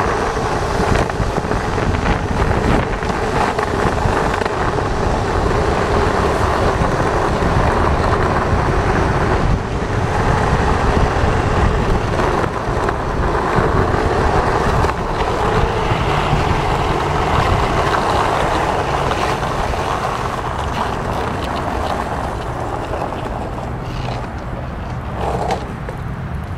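Skateboard wheels rolling fast over asphalt, a steady rumbling rush with wind on the microphone, easing off near the end as the board slows.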